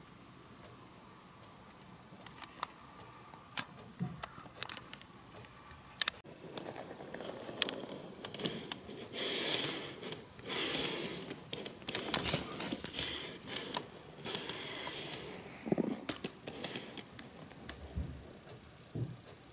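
An N-gauge model train car handled and pushed along its plastic track by hand: scattered small clicks at first, then a busier stretch of rustling and scraping with many clicks in the middle, thinning out near the end.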